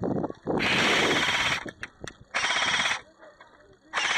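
Airsoft gun firing full-auto in three bursts, each a rapid rattling stream of shots. The first lasts about a second, the second is shorter, and the third starts near the end.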